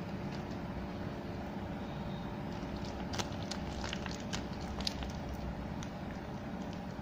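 Clear plastic wrapping being handled, giving a scatter of sharp crinkles and crackles from about three to five and a half seconds in, over a steady low background hum.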